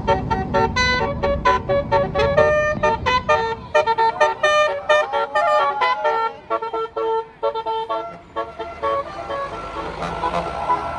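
Bus's Basuri telolet musical horn playing a rapid tune of short tooted notes, with the bus engine running underneath at first. Near the end the notes stop and a hissing rush takes over.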